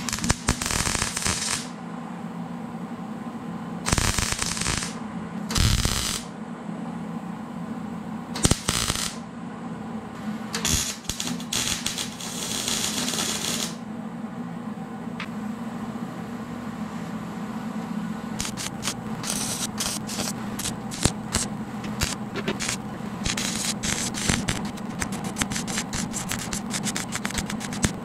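MIG welder arc crackling and spitting on thin sheet steel. It comes in short bursts of a second or so through the first half, then as denser, near-continuous crackling from about two-thirds in. The stop-and-start welding on thin metal keeps the arc from blowing through it.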